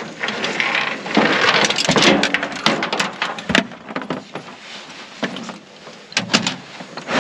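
A hound being loaded into an aluminum diamond-plate dog box on a pickup bed: scuffling and rustling, with metallic knocks and clicks as the box's compartment door is handled and latched near the end.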